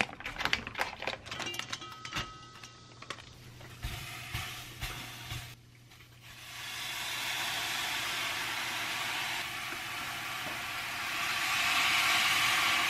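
A plastic vacuum pack of sliced sausages and ham crinkles as it is handled. About halfway through, bone broth starts pouring steadily from a pouch into a pot, and the pour grows louder near the end.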